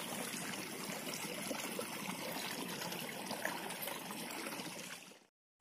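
Steady trickling of running water. It cuts off abruptly about five seconds in.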